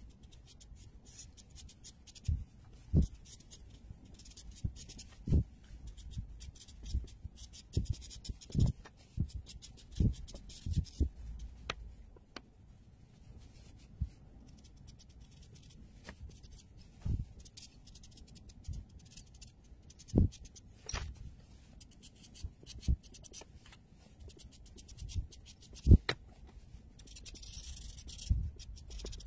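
Marker tips scratching and rubbing across paper as an area is coloured in, with scattered light taps and knocks of the pen and hand against the paper and desk.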